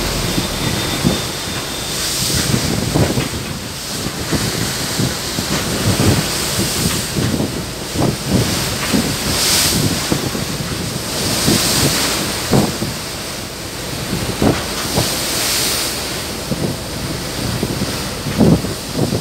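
Wind buffeting the microphone over the rush of rough, choppy sea around a moving boat, with a surge of hissing wash every few seconds.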